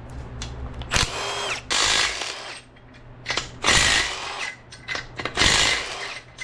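Handheld power drill/driver spinning out the engine's main bearing cap bolts in several short bursts, about four, with a brief whirring rise in pitch on one of them: the main caps being unbolted after a Plastigauge clearance check.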